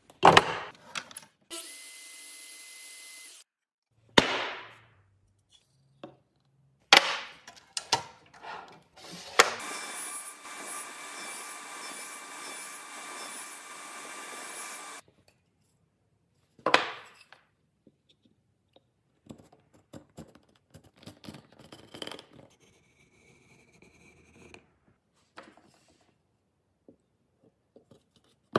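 A radial arm saw runs and cuts a lap joint into a wooden post for about five seconds in the middle, with a shorter stretch of steady machine noise near the start. Sharp knocks come several times, and in the last part there are light scrapes and taps as the joint pieces are fitted together.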